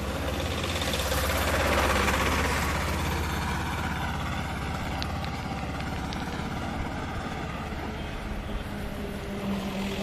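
Motor vehicle engine running close by in street traffic, a steady low rumble, with the noise of a passing vehicle swelling about two seconds in.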